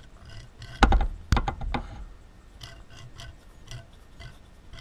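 Ball nut turned by hand along the worn Y-axis ball screw taken out of a Tormach mill: two loud knocks about a second in, then a gritty rasping with regular clicks about three a second. The sound of a worn-out, rusted ball screw that sounds terrible.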